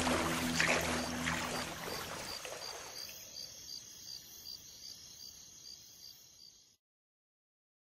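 Cricket chirping, about three chirps a second, over the dying tail of low sustained background music; the music fades within the first two seconds or so, then the chirping fades too and cuts to silence near the end.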